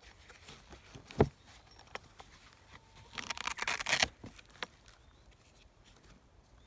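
A fabric-covered Jackery SolarSaga 60 folding solar panel being handled on its cardboard box. There is a sharp thump about a second in, then about a second of loud scraping rustle around three seconds in, with small clicks and taps between.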